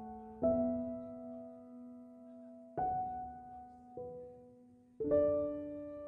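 Slow, gentle piano music: soft chords struck every second or two, each left to ring and fade.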